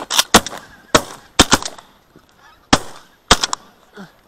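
A ragged volley of shotgun blasts from several hunters firing at geese flying over, about eight shots in three and a half seconds, unevenly spaced, with geese honking between the shots.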